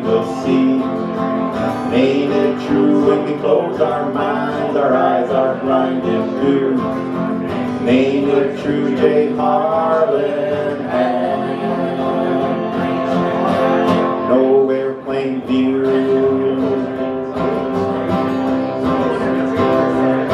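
Two acoustic guitars strumming a folk-country song, with a man's voice singing over them at times.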